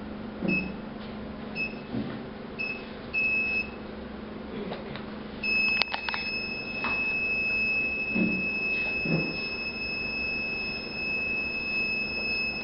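An electronic buzzer on the Arduino-controlled model railway's circuit. It gives several short high beeps, then from about halfway through holds one steady high tone. A few sharp clicks and low knocks are heard along with it.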